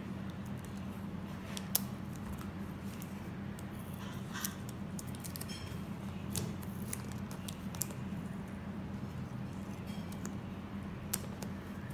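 Clear cellophane tape being peeled off its roll and pressed onto gift-wrapping paper: faint crackling with a handful of sharp clicks, over a steady low hum.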